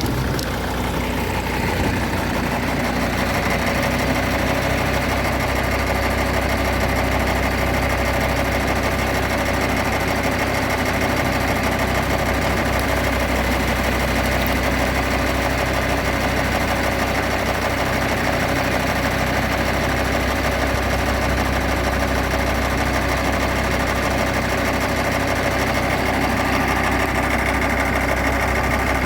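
Farm machinery engine running steadily at an even speed: a vintage Allis-Chalmers Roto-Baler outfit at work.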